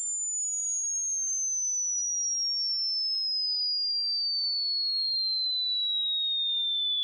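A pure electronic sine tone gliding slowly and evenly downward in pitch, from a high whistle to a lower one, with a tiny click about three seconds in: a frequency-sweep test tone played to test a cat's hearing.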